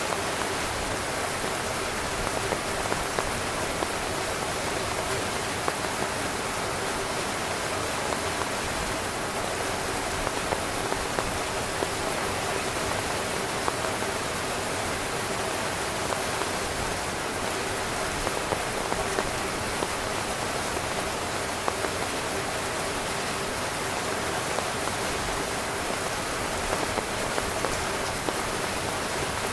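Heavy rain drumming steadily on a tent's fabric, a dense hiss of rain with many individual drops pattering through it.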